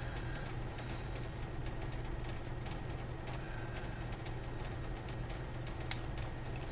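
A steady low hum underneath faint handling clicks of a Casio Pro Trek's resin watch case being worked apart by hand. One sharp click comes near the end as the case separates.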